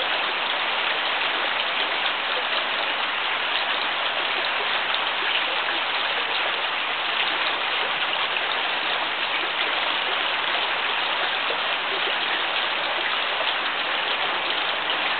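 Steady, even hiss of rain.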